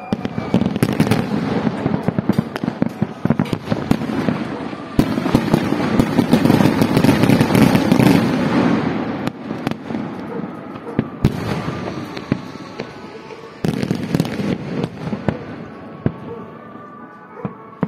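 Aerial fireworks bursting: dense crackling and popping, busiest around the middle, with a few sharp single bangs later on.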